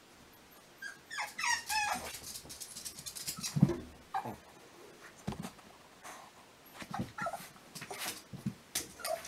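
Boston terrier whining and whimpering in short, wavering high-pitched cries, mixed with a few clicks and one dull thump about three and a half seconds in.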